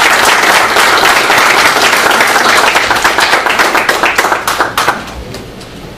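A roomful of people applauding, the clapping thinning out and stopping about five seconds in.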